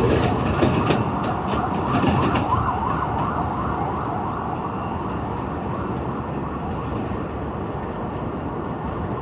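Subway train running through an elevated station, its wheels clacking over rail joints for the first couple of seconds, then settling into a steady rumble with a thin high whine. About two and a half seconds in, a wavering siren-like wail rises and falls for a second or two.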